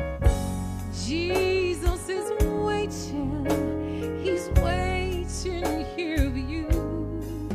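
A woman singing a gospel song into a microphone over backing music, her voice wavering with vibrato on held notes, with steady low accompaniment and drum hits.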